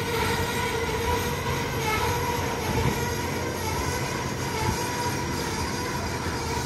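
Double-stack container train of well cars rolling past: a steady rumble of wheels on rail, with a held wheel squeal running under it.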